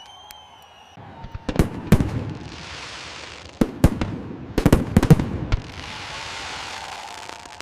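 Fireworks going off. A short rising whistle opens the stretch, then comes a run of sharp bangs from about a second and a half to five seconds in, with stretches of hissing crackle between and after them.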